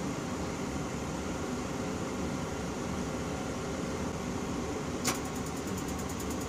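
Propane furnace's blower running with a steady hum; about five seconds in, a sharp click and then a rapid run of ticks, many a second, from the spark igniter lighting the burner.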